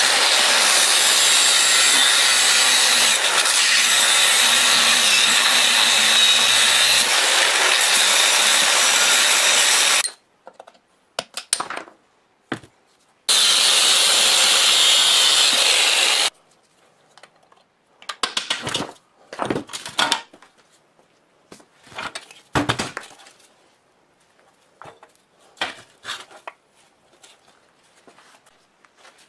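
Angle grinder cutting into rusted steel bolts, running for about ten seconds, stopping, then running again for about three seconds. Scattered knocks and clatter of metal parts follow.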